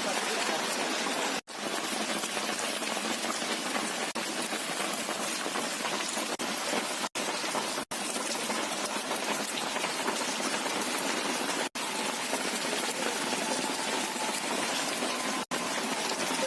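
Steady hiss of heavy rain and running water. The sound drops out abruptly for an instant about five times.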